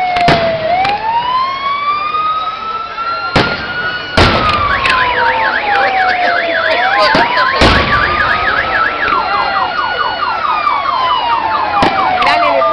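Several emergency-vehicle sirens sounding at once, slow wails rising and falling, with two stretches of fast yelping. About five sharp firework bangs punctuate them.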